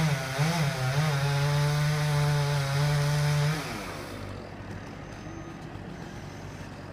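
Chainsaw running at full throttle with a steady, slightly wavering engine note. About three and a half seconds in, the throttle is released and the note falls away to a low idle.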